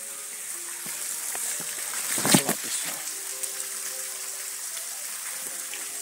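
Leaves brushing against the camera on a wooded trail: one loud rustle about two seconds in, over a steady hiss.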